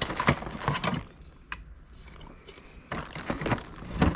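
Packaging of a boxed toy play set being handled: rustling and light clicks in two spells, with a quieter stretch between.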